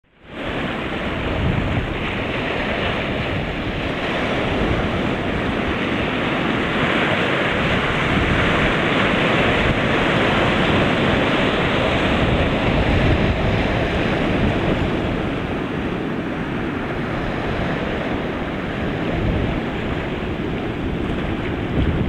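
Sea waves breaking on a rocky shore, a continuous rushing of surf as foam washes over and between the stones, with wind buffeting the microphone.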